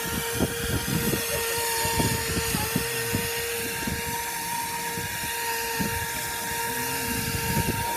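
Steady high whine of an air-driven fiberglass chopper spray gun, running continuously as it chops glass strands into the sprayed roofing emulsion, with irregular low rumbles underneath.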